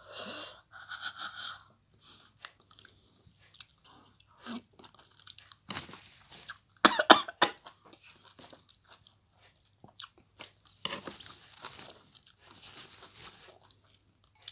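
A person chewing sour lemon with hot chili, with wet mouth clicks and smacking throughout. A loud burst of coughing comes about seven seconds in, and there are breathy huffs of air near the start and again near the end.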